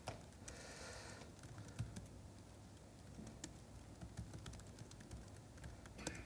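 Faint, irregular keystrokes on a laptop keyboard as a terminal command is typed out.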